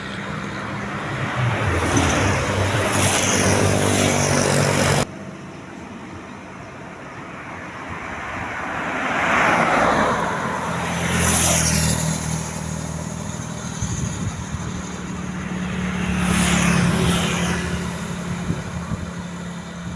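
Road traffic: several vehicles pass one after another, each rising and fading, with engines running underneath. The sound changes abruptly about five seconds in.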